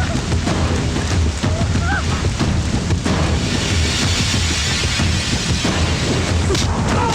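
Film fight-scene sound effects: heavy booming hits and impacts over a dramatic background score and a steady low rumble, with a hissing rush in the middle.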